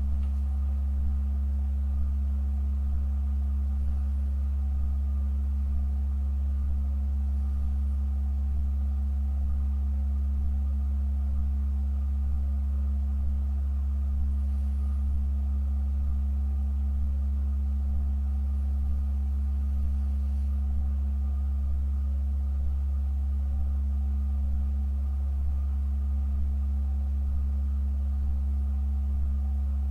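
Church organ holding a deep, steady low tone, with a fainter higher tone and thin overtones sounding above it, unchanging and without attack or release.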